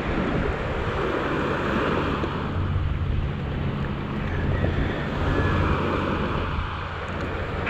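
Small waves breaking and washing over a pebbly shore, with wind buffeting the microphone and a low engine hum underneath.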